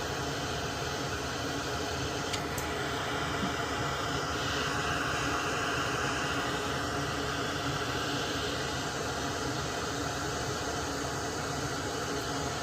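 Steady rushing noise of moving air. It grows a little louder about four seconds in and eases back after about seven seconds.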